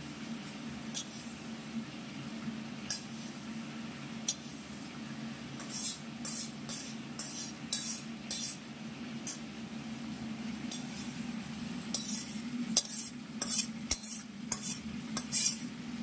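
Metal spoon scraping and clinking against a steel karahi, scooping freshly fried rice grains out into a steel plate, in two runs of quick strokes. A steady low hum runs underneath.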